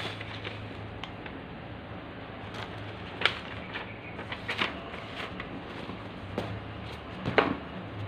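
Hands handling a white protective sheet inside a nylon laptop bag: scattered rustles and light clicks, with two sharper ticks about three seconds in and near the end, over a steady low hum.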